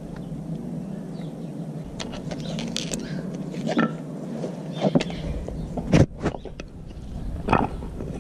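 A buffalo-horn dog chew knocking and scraping on concrete as a Siberian husky noses it about and picks it up, in scattered sharp clicks and knocks starting about two seconds in.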